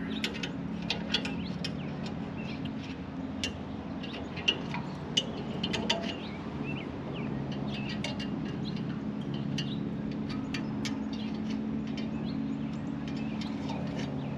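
Hand tool scraping, clicking and tapping against the metal spoon tines of a plug aerator as packed soil is cleaned out of them, in quick irregular strokes with a few sharper knocks. A steady low hum runs underneath.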